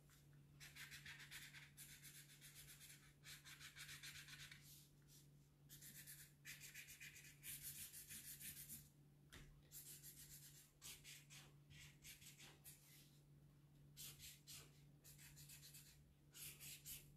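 Green felt-tip marker (texter) scratching faintly across paper in a series of short strokes with brief pauses, over a low steady hum.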